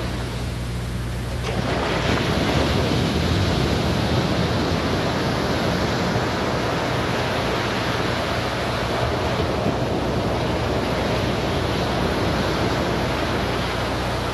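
A steady, even rushing noise that grows louder about a second and a half in, over a low hum.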